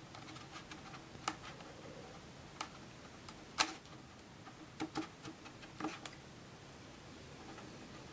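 Sharp plastic clicks, about half a dozen and irregularly spaced, the loudest about three and a half seconds in, as thin wooden sticks pry along the seam of a Kobo Glo e-reader's back cover. The clicks are the cover's snap catches and plastic edges giving way as the back is worked loose.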